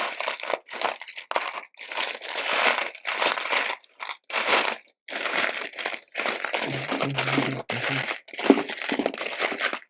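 Hands rummaging through loose plastic LEGO pieces: a rustling clatter that comes in a string of short bursts.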